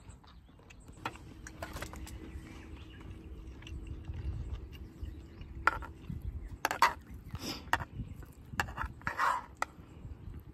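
A metal spoon scraping and clicking against a mess tin as rice is scooped out and eaten, with a few sharp clicks and brief scrapes over a low rumble.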